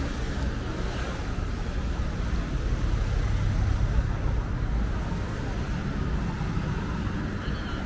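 Outdoor ambience, a steady low rumble with no distinct events.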